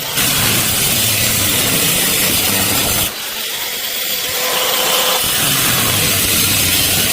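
Stick (arc) welding on steel square tube: the arc crackling and sputtering steadily, with a short break about three seconds in before it starts again.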